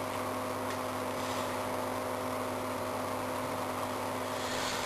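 Steady background hum with a few constant tones over faint hiss, like a fan or mains hum.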